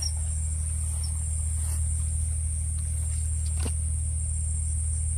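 Night insect chorus: a steady, high-pitched drone of insects over a steady low hum, with a couple of faint clicks.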